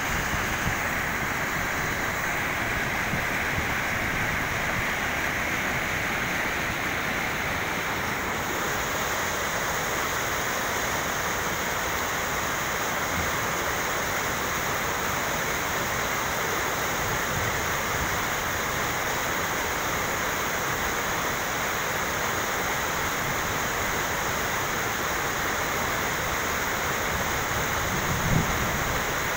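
Steady rush of river water spilling over a weir, with one short low thump near the end.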